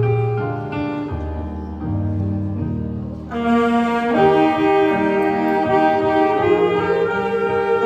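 Wind ensemble playing: a thinner passage over low held bass notes, then about three seconds in the full band of saxophones and brass comes in louder with sustained chords.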